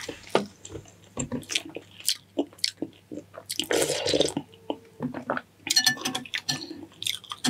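Close-miked eating of noodle soup: wet chewing and lip smacks, with a short noisy slurp about four seconds in.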